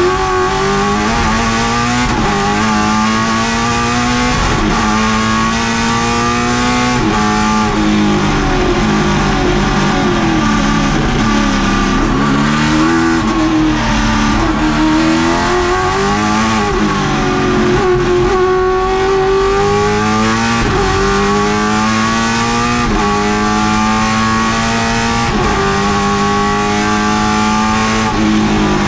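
Holden Commodore race car's V8 engine at racing speed, heard from inside the stripped cabin. The pitch climbs through each gear and drops sharply at every quick upshift, then falls and rises again as the car slows and picks up, about ten seconds in and again around sixteen seconds.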